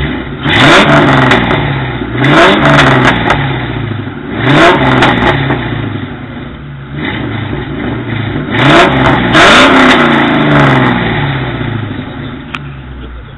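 Ford Mustang GT's 4.6-litre two-valve V8 breathing through Moroso Spiralflow mufflers, revved in about five sharp throttle blips from idle, each one climbing and then falling back to a steady idle in between.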